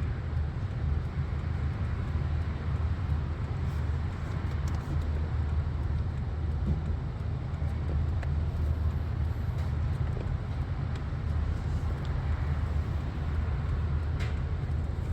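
A Lexus ES350's engine idling, heard from inside the cabin as a steady low rumble.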